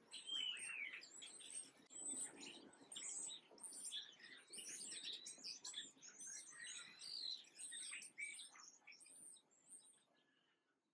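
Many small songbirds chirping and twittering over one another in a dense chorus of short, high calls, fading out near the end.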